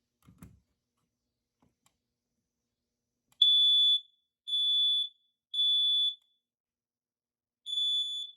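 First Alert smoke alarm sounding on test: three loud, high-pitched beeps of about half a second each, a pause, then a fourth beep starting the next round, the temporal-three evacuation pattern. A soft thump comes just before, near the start.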